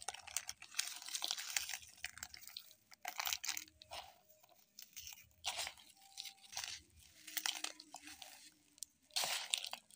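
Chocolate cream biscuits crushed by hand into crumbs in a plastic bowl, with the crinkle of their plastic wrappers: irregular crunching and crackling, loudest near the end.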